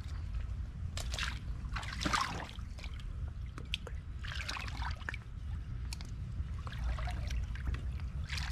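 Shallow creek water sloshing and splashing in irregular bursts every second or two, over a steady low rumble.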